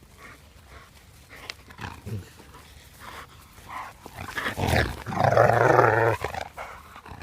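Belgian Malinois growling and barking in warning: faint scattered sounds at first, then a loud burst about four seconds in that lasts about two seconds. The dog is wary of women and aggressive.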